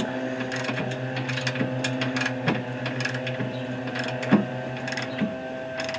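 Hand ratchet with a 19 mm socket clicking in irregular strokes as bull-bar mounting bolts are tightened.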